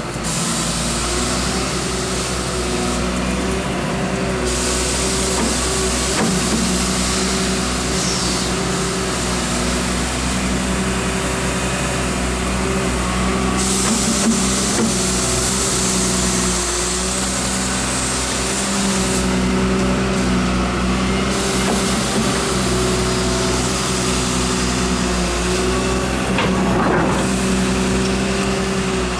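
Hyundai R140W wheeled excavator's diesel engine running steadily, with a high hiss that cuts in and out several times.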